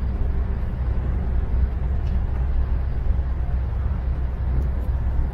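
Cabin noise inside an intercity coach at highway speed: a steady low rumble of engine and road noise that holds even without changing.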